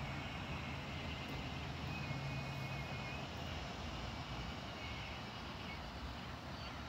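Steady outdoor background noise with a low hum and a few faint high tones.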